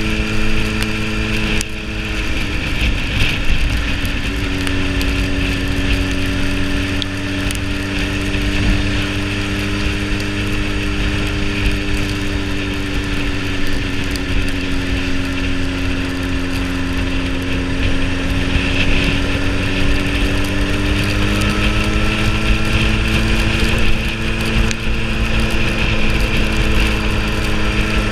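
Sport motorcycle's engine running at cruising speed on a wet road, with a steady rush of wind and road noise beneath it. The engine note drops about two seconds in, holds steady, then climbs again after about twenty seconds.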